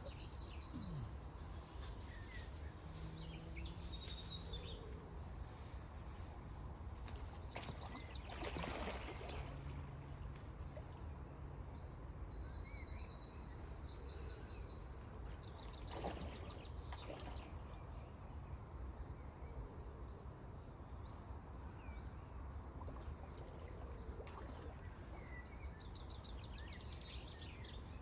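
Outdoor lakeside ambience: a steady low rumble like wind on the microphone, with a bird's song of quick repeated high notes heard twice, about halfway through and near the end. There are a couple of brief rustling noises, about a third and about halfway in.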